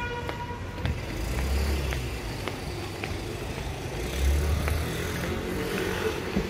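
City street traffic: cars passing with a low rumble that swells twice, once a little over a second in and again about four seconds in.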